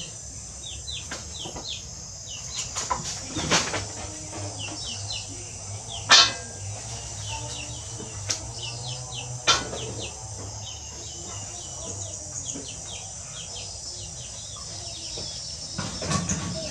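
Birds chirping in quick short calls over a steady high hiss, with a few sharp knocks and clatters of cookware; the loudest knock comes about six seconds in, and there is a longer clatter near the end.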